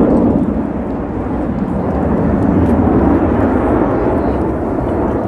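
Blue Angels F/A-18 Super Hornet jets making a loud, steady, deep roar as they fly past, cutting off abruptly near the end.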